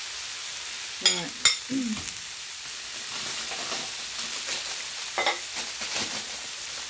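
Food sizzling steadily in a frying pan, with two sharp knocks about a second in and a plastic packet crinkling near the end.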